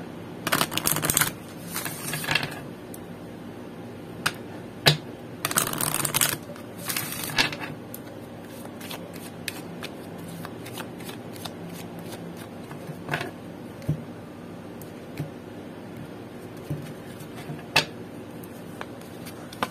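An oracle card deck shuffled by hand: four dense bursts of cards sliding against each other in the first eight seconds, then only occasional soft taps and clicks as the deck is squared and handled.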